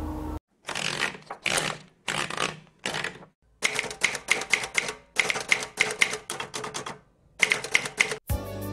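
Typewriter keys striking in quick runs of about half a dozen strokes a second, with short silent pauses between the runs. Music comes in just before the end.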